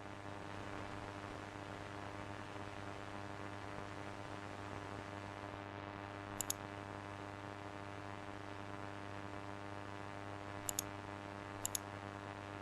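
A steady low hum with a buzzing stack of overtones, fading in at the start, with three brief double clicks partway through.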